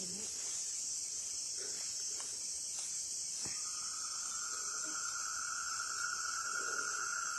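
Night insects chirring in a steady high-pitched drone. A second, lower steady tone joins about three and a half seconds in and holds.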